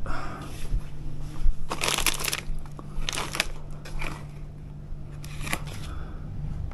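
Plastic snack packets crinkling as they are handled and taken off a shop's pegboard hooks, in a few short bursts over a steady low hum.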